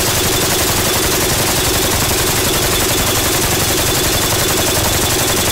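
RPK light machine gun (7.62×39 mm) firing one long continuous full-auto burst from a drum magazine, about eleven shots a second. The barrel is hot and smoking after some 600 rounds of sustained fire, and the rate of fire has begun to vary.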